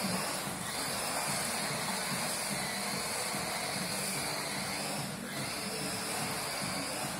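Overmax X-Monster 3.0 electric RC truck driven hard on a concrete floor: a high electric-motor whine over the hiss of its tyres sliding on the concrete. The whine dips briefly about five seconds in.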